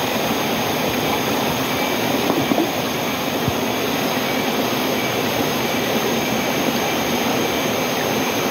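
Steady rushing of a waterfall and stream, an even roar that holds constant throughout.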